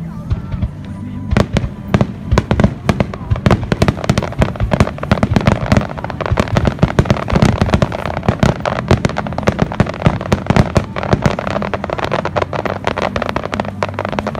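Aerial fireworks bursting in a dense run of sharp crackles and bangs that starts about a second and a half in and keeps going, over background music.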